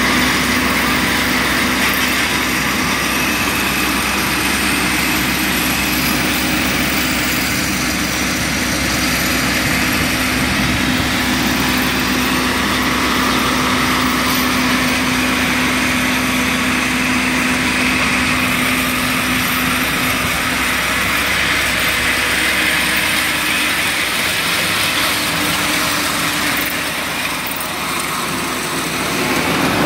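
An engine running steadily with a constant hum, easing off slightly a couple of seconds before the end and picking up again.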